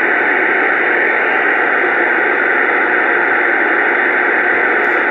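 Steady, loud static hiss from a CB radio's speaker, with no voice in it, like an open channel or a keyed-up transmission that carries no speech.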